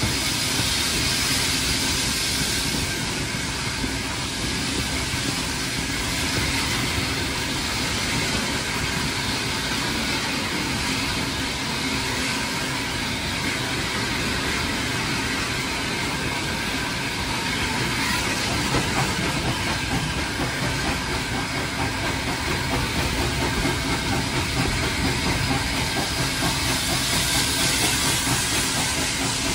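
A heritage railway passenger carriage running along the track, heard from its open window: a steady rumble of wheels on rail with a rush of air.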